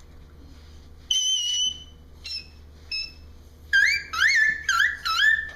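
A baby making high-pitched, bird-like squeals: one held squeal about a second in, two short squeaks, then a quick run of about five chirping squeals that rise and fall in the last two seconds.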